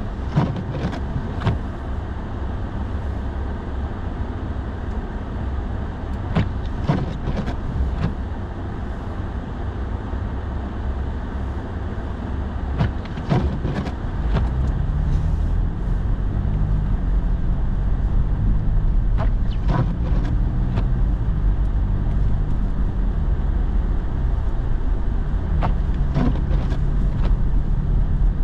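Truck driving on snowy streets, heard from inside the cab: steady engine and tyre rumble with a small cluster of light knocks every six seconds or so. The rumble grows louder about halfway through.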